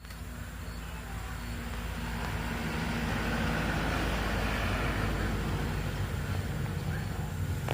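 Steady low engine-like rumble with a hum, growing gradually louder over the first few seconds.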